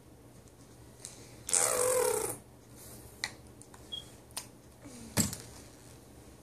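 Plastic squeeze bottle of strawberry syrup squirting and sputtering for about a second, starting about a second and a half in, followed by a few sharp clicks and knocks, the loudest about five seconds in.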